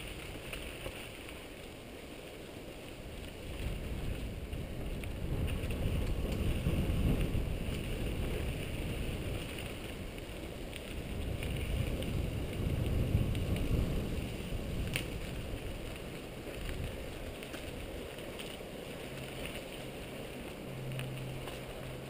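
Wind rushing over a mountain bike camera's microphone, mixed with the rumble and rattle of the bike rolling over a dirt singletrack. The rumble swells twice, and there is one sharp click about two-thirds of the way through.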